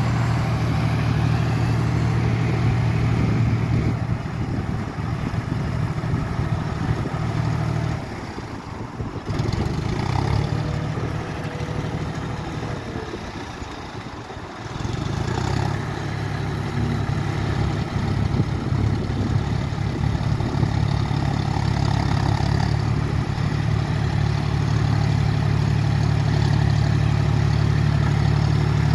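John Deere 5045D tractor's three-cylinder diesel engine running steadily under load as the tractor works a rear rotary tiller through a flooded field. The drone drops back for several seconds in the middle, then returns steadier and a little louder near the end.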